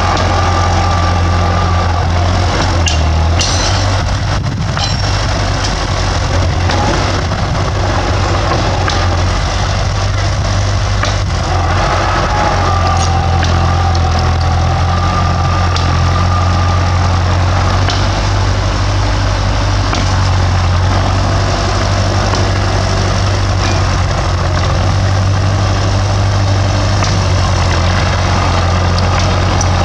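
Bulldozer's diesel engine running loud and steady, with a high whine that comes and goes and a few sharp knocks a few seconds in.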